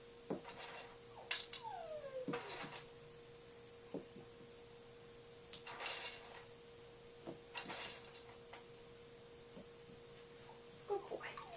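Small crunchy dog treats (Charlee Bears) dropped one after another onto the floor around a lying greyhound, giving scattered light taps and short rattles every second or two. A couple of falling whines from the dog come in the first few seconds, over a steady faint hum.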